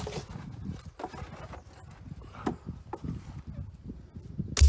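Fresh herring being dropped and pushed into a plastic barrel onto a layer of rock salt: scattered light knocks and rubbing, with one loud, deep thump near the end.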